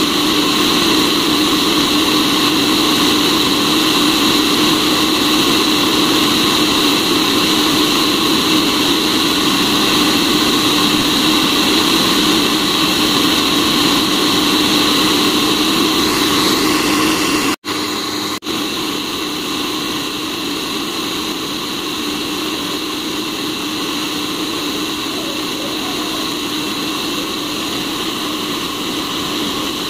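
Cafemasy hot-air coffee roaster running steadily, its fan blowing the beans around the glass roasting chamber. The whir cuts out for an instant about two-thirds of the way through, then goes on slightly quieter.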